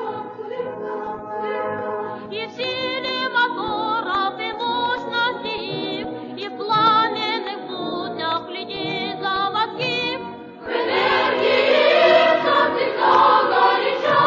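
Choir singing a slow melody with vibrato. A little over ten seconds in, after a brief dip, the full choir comes in louder and fuller.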